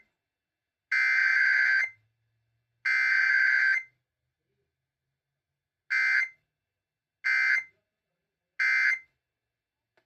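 Emergency Alert System SAME data tones, a harsh buzzing digital warble. Two bursts of about a second each close out the three-burst header. After a pause come three short bursts about a second and a half apart: the end-of-message code.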